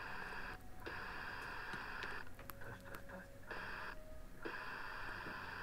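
Audioline 341 CB radio's speaker hissing with receiver static. The hiss cuts out three times, briefly near the start and for about a second in the middle with a few clicks.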